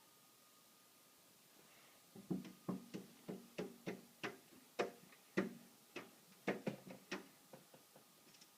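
A run of sharp knocks, each with a short ringing tone, about three a second; it starts about two seconds in and grows fainter near the end.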